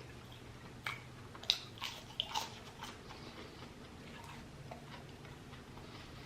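Close-up chewing and crunching of battered fried shrimp: a cluster of crisp crackles and mouth clicks about a second in lasting a couple of seconds, over a faint low hum.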